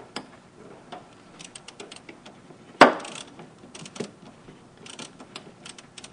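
Small metallic clicks and taps of hand tools as a bolt is threaded into a car battery's terminal, with one sharp clank a little under three seconds in and a softer knock about a second later.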